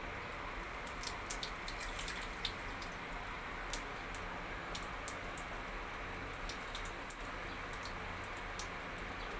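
A thin stream of water pouring from a small plastic bottle into the water of a toilet bowl, splashing and pattering unevenly with many small drops.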